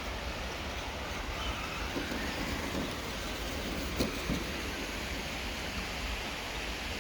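Steady rushing noise of a large waterfall, with a couple of short knocks about four seconds in.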